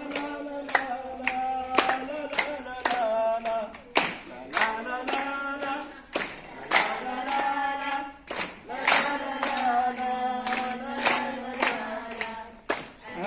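A group of voices singing a scout song in unison, clapping along in a steady beat of about two claps a second.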